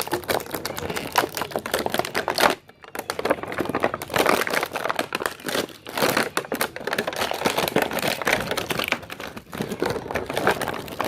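Plastic toy packaging crinkling and crackling as it is handled, with irregular clicks and a brief pause about a third of the way in.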